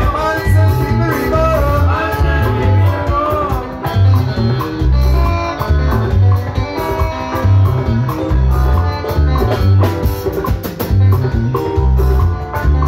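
A live band playing: electric guitar over a drum kit, with a strong, steady low beat.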